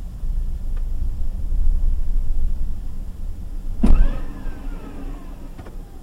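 Vehicle engine running, then about four seconds in a sharp bang from the transmission followed by a whine that falls in pitch over about two seconds, the sound of the reverse gear failing. A lighter click comes near the end.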